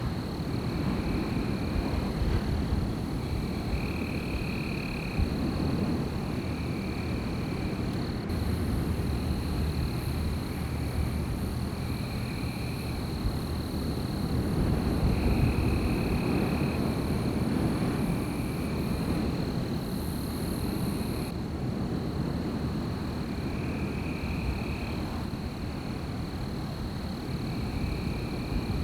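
Wind blowing through a night forest, a steady rushing rumble, under a constant high-pitched tone and short calls of about a second each that repeat every couple of seconds.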